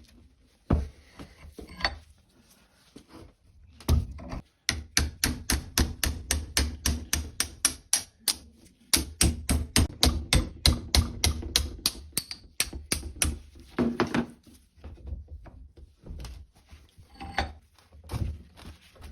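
Hammer striking metal in two long runs of rapid blows, about four or five a second, with scattered single knocks before and after.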